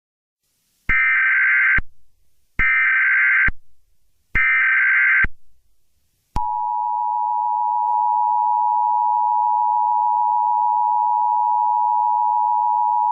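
Emergency Alert System signal: three short bursts of screeching SAME header data, each just under a second, then, about six seconds in, the steady two-tone EAS attention signal.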